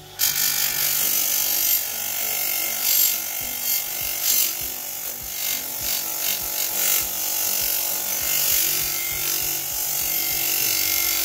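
Steel axe blade edge pressed against a spinning bench-mounted abrasive wheel: a loud, steady hiss of abrasion that swells and eases as the pressure changes, over the hum of the wheel's motor. It starts suddenly and cuts off at the end.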